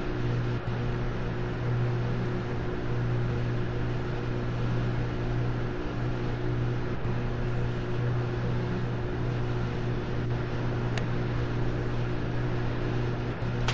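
Amana and Elite Series 4 washing machines running: a steady motor hum with an even whir over it. A faint click about eleven seconds in.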